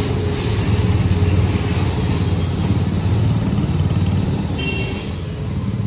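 A steady low machine drone with a fast pulse in it, from the car wash's pressure washer motor and pump running while it sprays.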